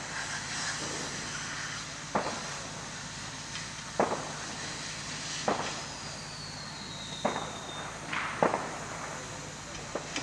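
Firefighter's hose jet spraying water onto a burnt-out scooter, a steady hiss, with sharp cracks and pops about every second and a half to two seconds.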